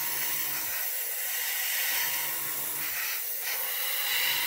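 Airbrush spraying paint at about 15–18 psi: a steady hiss of air. Underneath it, a low pulsing hum comes and goes in spells of about a second.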